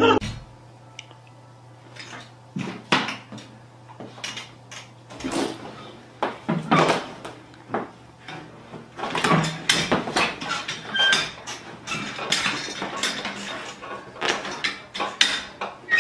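Tiger cub tearing apart a padded office chair: irregular scratching, ripping and clattering of claws and teeth on the foam, fabric and plastic of the seat, busier in the second half, over a low steady hum.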